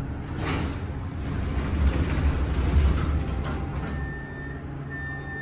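Cab of a large MEI hydraulic elevator: a low rumble that swells and fades as the car stops and its wide doors slide open. About four seconds in come two steady electronic beeps, a second apart.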